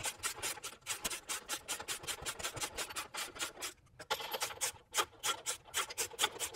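Steel skid-plate mounting post being screwed by hand onto its threaded stud toward bottoming out, making a fast run of rasping, scraping strokes about six a second. The strokes pause briefly about four seconds in.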